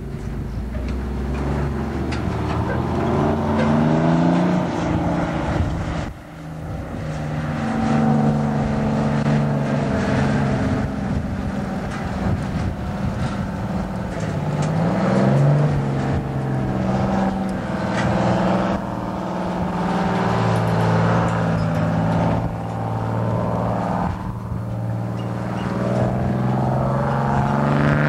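Diesel engines of a grain-hauling semi, a grain truck and a Case IH combine driving past on a road, their engine pitch rising and falling several times as they pull away.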